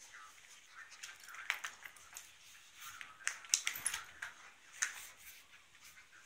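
A Belgian shepherd puppy and a black Labrador play-fighting on a hard wooden floor: scattered sharp clicks and scuffles, thickest about three and a half seconds in.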